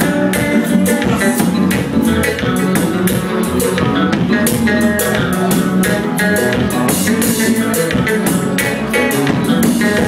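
Live band playing with a steady beat: electric guitar, bass guitar and drum kit.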